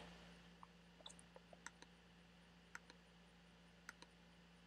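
Near silence with a faint steady hum, broken by a handful of faint, irregular clicks from a computer pointer as a menu is opened and the drawing canvas is cleared.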